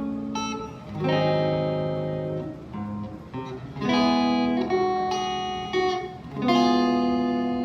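Ibanez RG421HPFM electric guitar on a clean tone with a little reverb, playing several chords that are struck and left to ring; the last, about six and a half seconds in, dies away slowly.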